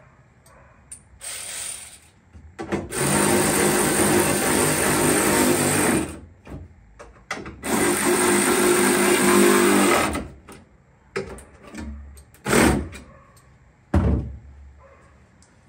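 Power drill running under load in two steady spells of about three seconds each, with a few short bursts before and after.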